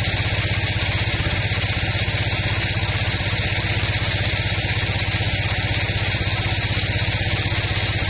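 Band sawmill running steadily while its vertical blade cuts lengthwise through a teak log: an even, unbroken machine drone with a fast low pulse and a hiss above it.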